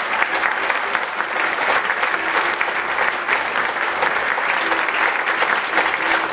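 A crowd applauding: dense, steady hand clapping.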